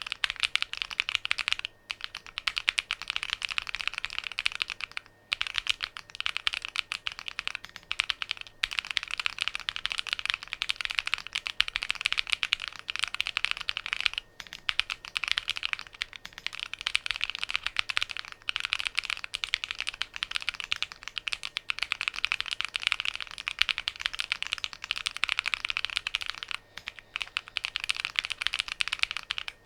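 Fast typing on a DIY Alice-layout mechanical keyboard: a rapid, steady run of key clicks, broken by a few brief pauses.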